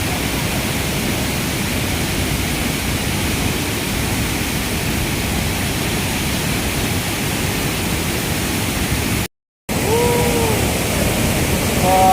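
A waterfall rushing steadily. Its sound breaks off briefly near the end, and after that a voice calls out a couple of times over the falling water.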